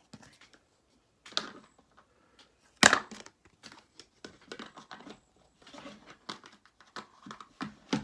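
Handling noise as a knife and its box are put away: rustling and small clicks, with one loud sharp clack about three seconds in.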